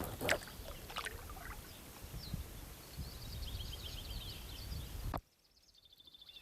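Small birds chirping and twittering in quick high calls over a low rumbling background, with two sharp knocks near the start. The sound cuts out abruptly about five seconds in and only faintly returns.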